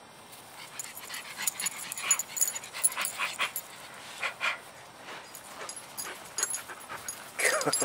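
Pug dog panting at close range, with a short falling whine near the end.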